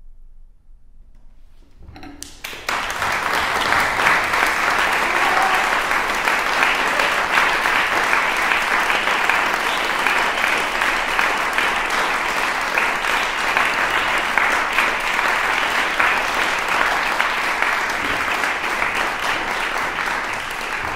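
After a brief hush, an audience breaks into applause about two seconds in, a dense steady clapping that carries on without letting up.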